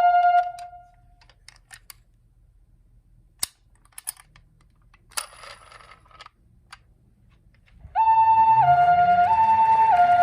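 Toy ambulance's electronic two-tone 'pee-po' siren, alternating between a high and a low note, cuts off about half a second in. A few light clicks and a brief rustle follow. The siren starts again near the end, with a low rising hum under it.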